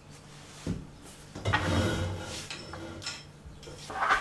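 Objects being handled on a wooden desk: a knock a little under a second in, a longer clatter and rustle around a second and a half in, and a sharp clack near the end.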